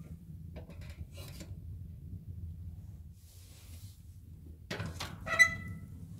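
Steel doors of a small wood-fired heating boiler being handled. There are light scrapes as wood is loaded, then about five seconds in a clatter and a loud ringing metal clang from a door and its handle being worked.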